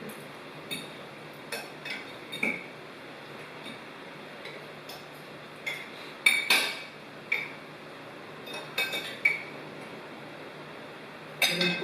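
Cutlery and dishes clinking now and then during a meal: a dozen or so light, scattered clicks and knocks, the loudest pair about six seconds in, over a faint steady background hum.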